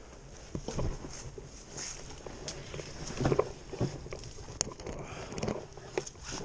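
Footsteps crunching through dry leaf litter and brush, uneven steps with branches and twigs rustling and snapping against the walkers and their gear, loudest about three seconds in.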